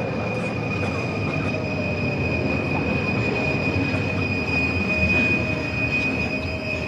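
A steady low rumble with a sustained high whine over it.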